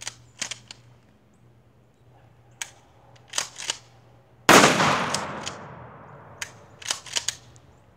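A single shotgun blast a little over halfway through, loud and sudden, its echo fading over about two seconds. Several short, sharp clicks and knocks come before and after it.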